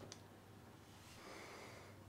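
Near silence: a low steady room hum, with a tiny click at the start and a faint soft hiss about a second in.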